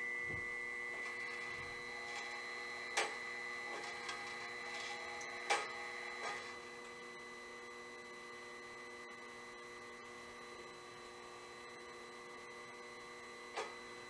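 Steady electric hum of a bandsaw-blade sharpening machine running, a motor drone made of several fixed tones that eases off somewhat in the first half. A few sharp clicks sound as the sharpener is adjusted, the clearest about three seconds in, near six seconds, and near the end.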